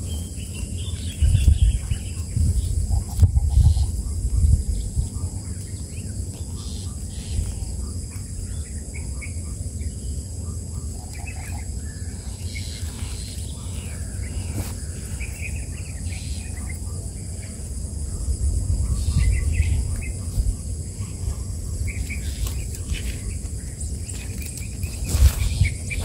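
Fingers handling the twigs and nest material close to the microphone: rustling, rubbing and bumps, loudest about a second in, around three-quarters of the way through and near the end. Short high bird chirps come and go over a steady high insect drone.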